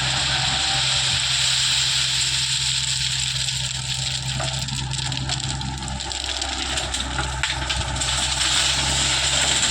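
Heavy-equipment diesel engine running steadily with a broad hiss over its low hum; the engine note changes about six seconds in.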